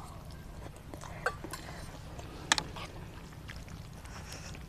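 Three people eating instant noodles from ceramic bowls: forks clicking and scraping against the bowls, with short slurps, over a steady low hum. One sharp click about halfway through stands out.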